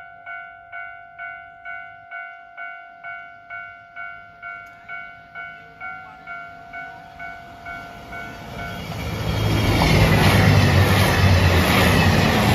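A level-crossing warning bell rings at about two and a half strokes a second. From about eight seconds in, a KiHa 283 series diesel express train comes through, and the rumble of its engines and wheels swells loud and drowns the bell.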